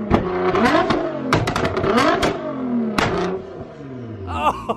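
Nissan GT-R R35's twin-turbo V6, running through a catless downpipe and a valved Fi exhaust with the valves open, revved in three or four sharp blips. Loud bangs and pops crack out on each lift-off as the exhaust spits flames. The revs then fall back toward idle near the end.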